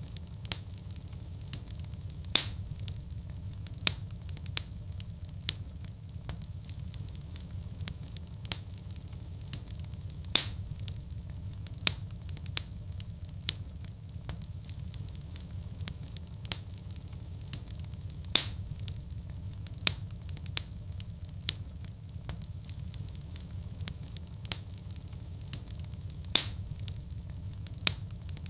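Wood fire crackling in a fireplace: scattered sharp pops and snaps over a steady low rumble, with the loudest pops recurring about every eight seconds.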